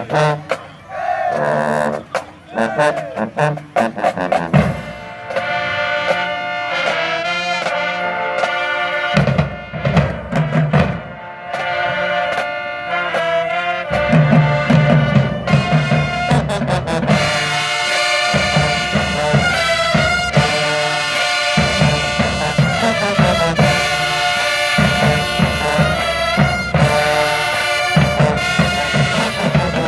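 Marching band playing: brass section with a drumline beating under it, the full band louder and fuller from about halfway through.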